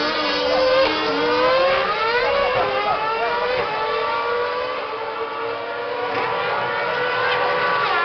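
Several Formula One cars' 2.4-litre V8 engines running at high revs and accelerating along the straight, overlapping one another. Their high pitch climbs and drops back again and again as they shift up through the gears.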